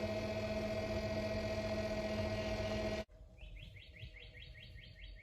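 Steady mechanical hum of the incubator for about three seconds, then it cuts off. A call duck duckling follows, peeping fast: short high rising peeps, about five a second.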